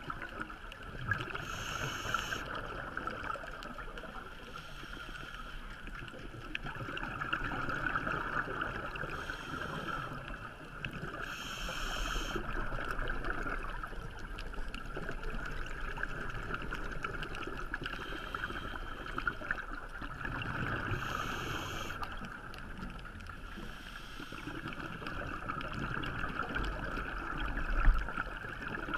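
Underwater scuba breathing: the diver's regulator, with bursts of exhaled bubbles every few seconds over a steady underwater hiss. A short thump near the end.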